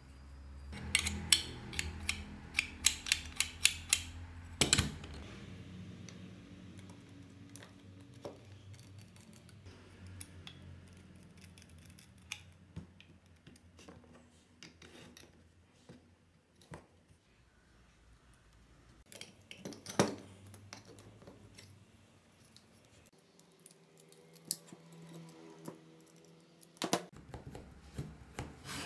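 Metal parts clicking and knocking as they are handled and fitted together: a 775 DC motor, a stepper motor and a timing pulley being set against an aluminium bracket. A quick run of sharp clicks in the first few seconds, then scattered single knocks, one louder knock about two-thirds of the way through.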